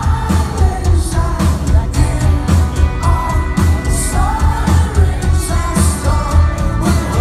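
Rock band playing live, a lead singer over a steady, driving drum beat, recorded from among the audience.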